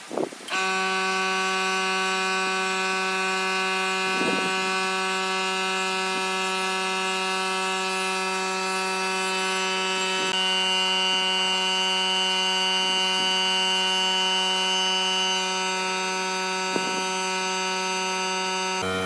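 A steady electronic buzzing tone with a stack of overtones, held at an even level throughout. Its upper overtones shift about ten seconds in.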